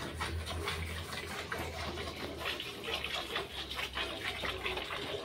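Hand-milking a Holstein Friesian cow: streams of milk squirting rhythmically into a steel bucket, a few squirts each second, in a steady run.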